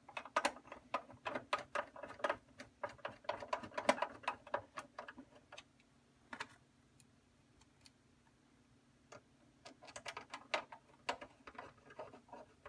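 Screws being driven by hand with a screwdriver into the side of a metal battery-tray cover: a run of quick small clicks for about five seconds, a lull, then a second run of clicks near the end.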